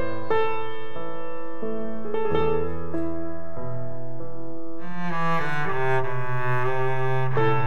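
Instrumental background music of slow held notes on piano and low bowed strings, growing fuller from about five seconds in.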